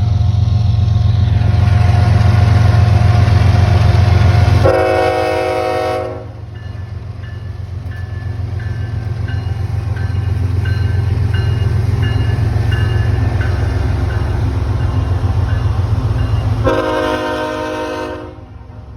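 A train passing very close, its locomotive rumbling loudly. It sounds two horn blasts, each about a second and a half long, one about 5 seconds in and one near the end. Between the blasts the rumble is quieter, with a regular high ding repeating.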